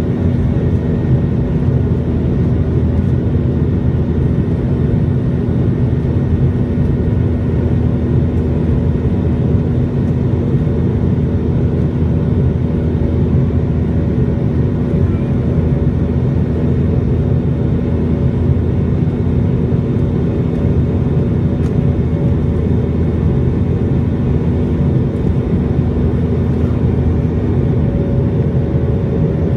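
Steady low drone inside the cabin of a McDonnell Douglas MD-90 in its climb after takeoff: the tail-mounted IAE V2500 turbofans and rushing airflow, with a steady hum running through it.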